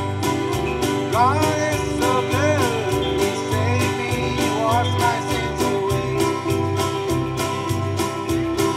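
Live country-gospel song: a man sings over a strummed acoustic guitar, with a steady bass and drum beat underneath. The singing comes in about a second in.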